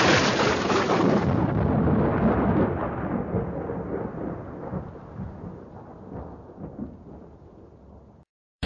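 Thunder sound effect: a loud rolling rumble that fades away gradually over about eight seconds, then cuts off abruptly.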